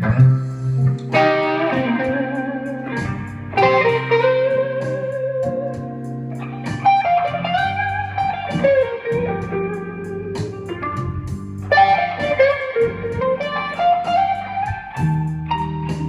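Electric guitar (Les Paul-style solid body) playing a blues lead: single-note phrases with string bends, slides and vibrato, over sustained low notes.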